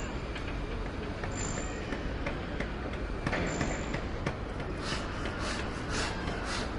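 Construction-site ambience: a steady low rumble with scattered clicks and a couple of short high pings, then a run of sharp knocks, about three a second, over the last two seconds.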